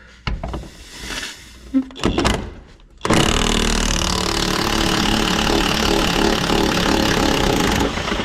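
Power impact wrench hammering on a rusty cab mount bolt for about five seconds, starting about three seconds in, after a few clinks of the socket going on. The bolt is coming loose without snapping off.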